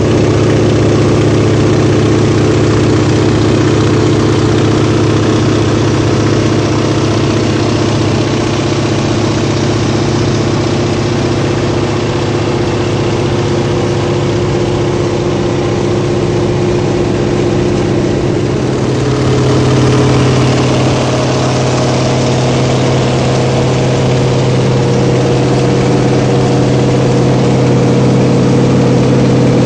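Antonov An-2's 1,000 hp nine-cylinder radial engine and propeller running steadily in flight, heard from inside the cockpit. About two-thirds of the way through, the engine note steps up a little and gets slightly louder, a change in power setting.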